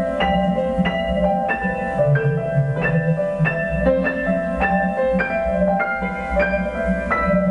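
Piano played as a steady stream of single notes, about three a second, each ringing on, over a low sustained bass that drops in pitch about two seconds in and comes back up about two seconds later.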